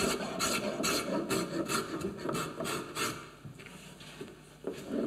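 Spokeshave set fine, taking quick strokes across the end grain of a wooden cutting board's edge, about three scraping strokes a second. The strokes ease off about three and a half seconds in and start again near the end.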